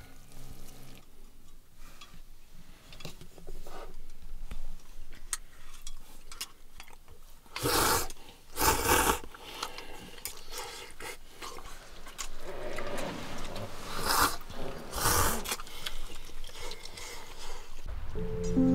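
Person eating hot noodles with chopsticks, with four loud breathy slurps in two pairs a few seconds apart and faint clicks of chopsticks on a metal cup between them. Music comes in near the end.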